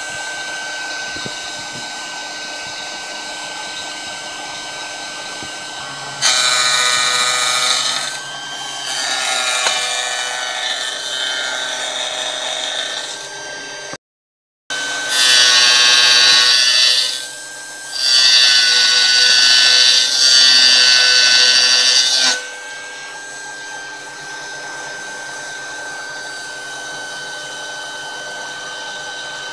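CNC spindle running a small 0.8-module involute gear cutter with a steady high whine, broken by four loud ringing cutting passes as the cutter cuts teeth into a brass gear blank. The sound drops out for a moment midway.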